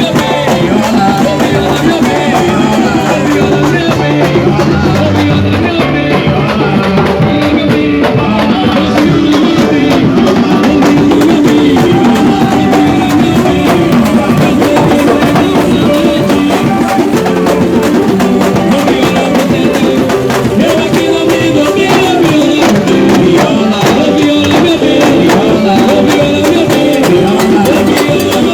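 Samba junino percussion band playing samba duro: loud, dense hand-drum and percussion rhythm with voices singing over it.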